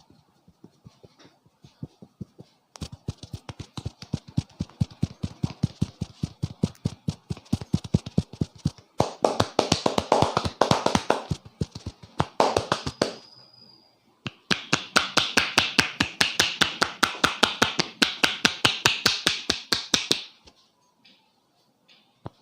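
Hands striking a person's head in quick rhythmic taps and slaps during a barber's head massage, several strikes a second. They come in two long runs with a short pause between them.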